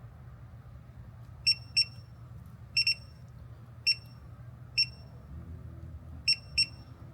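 Short, high-pitched electronic beeps from a digital torque wrench, about eight of them at uneven gaps, some in quick pairs, each signalling that a bolt has reached its set torque. A steady low hum runs underneath.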